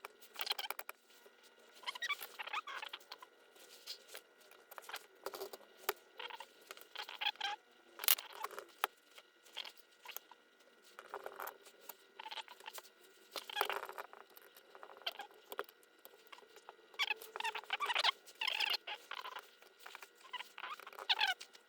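Irregular short bursts of scratching, rubbing and light clicking as small metal parts of a motor starter contactor are handled and worked on by hand.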